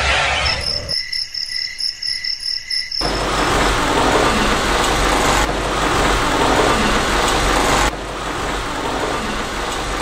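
Crickets chirping in a fast, even pulse of about five chirps a second for a couple of seconds near the start. After that a louder steady rushing noise with a low hum takes over, easing a little near the end.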